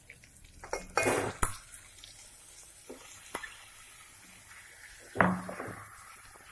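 Raw chicken pieces being spooned into hot masala in a metal pot: a spoon knocks and scrapes against the pot about a second in, with a few light clicks, then a louder knock about five seconds in and some sizzling.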